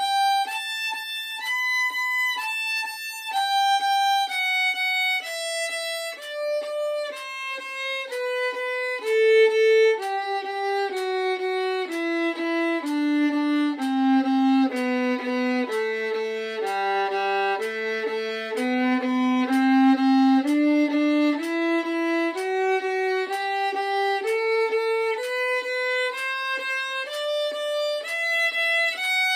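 Solo violin playing a G major scale in tremolo, each note rapidly re-bowed. It descends step by step to the low open G and then climbs back up the scale.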